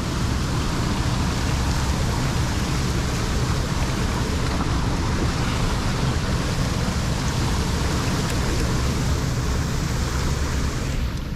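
Steady rush of lake water pouring through a drain's trash rack into a large pipe, flowing hard after the blockage was run through.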